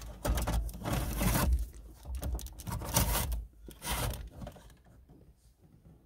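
Metal chassis of a Sony MEX-N5100BT car stereo scraping and rubbing as it is pushed by hand into the dashboard mounting sleeve. It comes in several pushes, the longest and loudest in the first two seconds, and dies away once the unit is seated.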